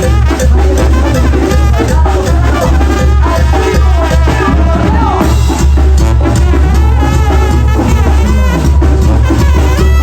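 Mexican banda music in chuntaro style: a brass band with a heavy bass line and drums, playing loudly at a steady beat.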